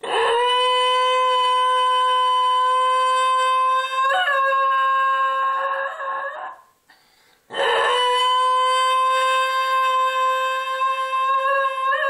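Basenji howling, set off by a tornado siren: a long, steady, high howl, a short break for breath about seven seconds in, then a second long howl.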